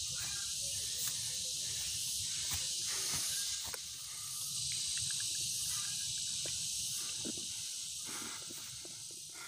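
Steady, high-pitched chorus of insects in hillside vegetation, with a low rumble of wind and handling on the microphone underneath; it fades out at the end.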